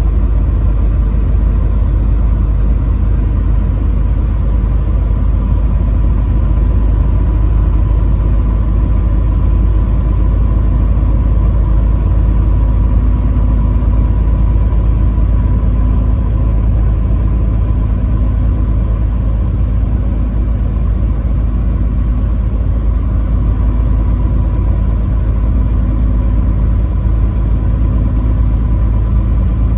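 Steady low rumble of a truck's engine and road noise while driving, with a faint steady whine above it.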